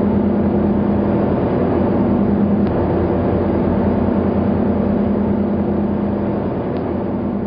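Steady engine drone with a constant low hum.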